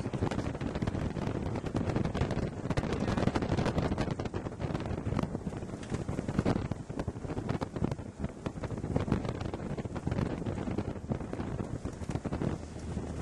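Strong, gusty storm wind buffeting the microphone, rising and falling in irregular gusts, over the low rumble of a vehicle.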